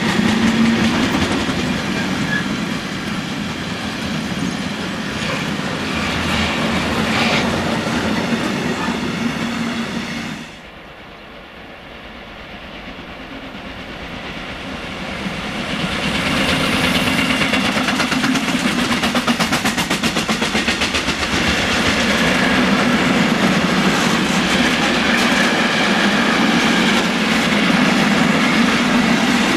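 Container freight wagons rolling past close by, with a steady rumble and clickety-clack of wheels on the rails. The sound drops off suddenly about a third of the way in. A second container train then approaches, growing louder, and its wagons clatter past for the rest of the time.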